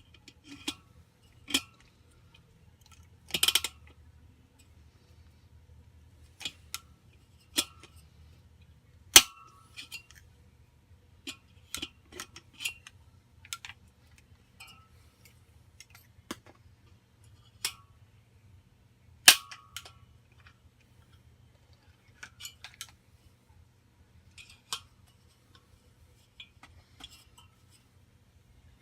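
Irregular sharp metal clicks and knocks, a few of them loud with a brief ring, from hand work on a sheet-metal A/C blower wheel, over a faint steady hum.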